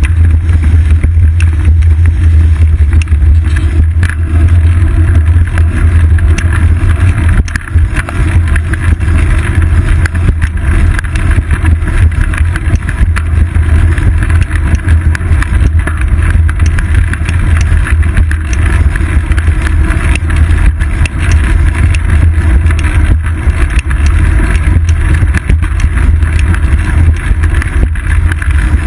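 Steady, heavy low rumble of wind buffeting and ride vibration on a seat-post-mounted GoPro Hero 2's microphone while cycling, with a lighter rushing noise above it.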